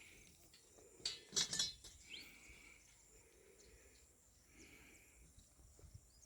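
A few footsteps on the road surface about a second in, then faint outdoor ambience with a short chirp from a bird.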